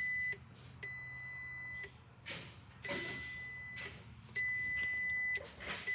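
An electronic beeper sounds a steady high-pitched beep about every second and a half, each beep lasting about a second, with a brief rustle of handling noise between beeps.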